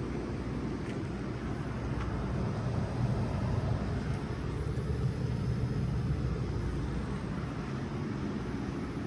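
3-ton Bard wall-hung heat pump running with a steady low rumble that swells slightly in the middle.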